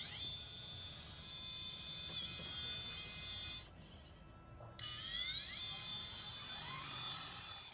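Whine from the electric motor and speed controller of a Vaterra K5 Blazer Ascender RC crawler running a Castle Mamba Micro X. The high, layered tones rise and fall together with the throttle, cut out for about a second midway, then rise again as the truck pulls away.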